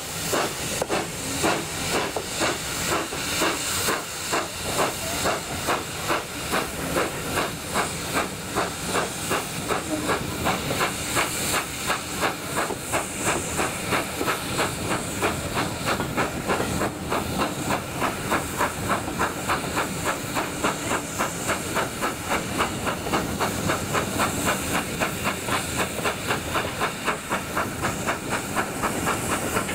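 Steam locomotive No. 7828 Norton Manor, a GWR Manor class 4-6-0, pulling away with its train: exhaust beats that quicken steadily from about one a second to three or four a second as it gathers speed, over a constant steam hiss.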